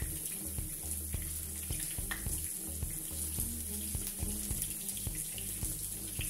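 Salmon fillets frying in an oiled pan: a steady sizzle full of small crackles, over a low hum that cuts in and out.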